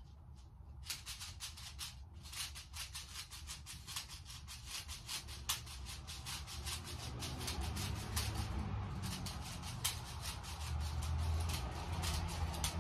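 Rapid, irregular clicking and rattling from handling an airsoft rifle and its magazine, with a low hum growing louder in the second half.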